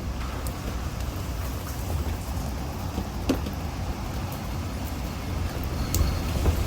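Typhoon wind and rain: a steady low rumble of wind under the hiss of rain, with scattered drops striking close by. There is one sharper hit about three seconds in and a couple more near the end.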